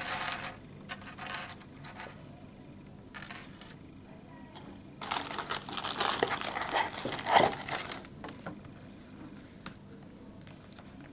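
Hands rummaging in a Lego set's cardboard box, with plastic packaging and bricks rustling and crinkling. There are a few short rustles first, then a longer, louder stretch about five to eight seconds in.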